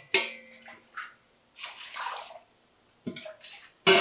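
Water poured and splashed over lentils being rinsed in a steel vessel, in several separate pours, with the clink of steel utensils; one clink about a fifth of a second in rings on for about a second.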